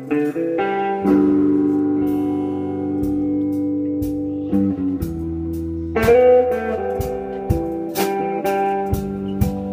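A band playing: sustained electric guitar chords ring over sparse drum and cymbal hits, which come more often in the second half.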